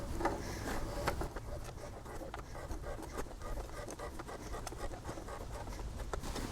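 Oil filter wrench tightening the plastic oil filter housing cap on a BMW N52 engine: a steady run of light, irregular clicks and small knocks, several a second.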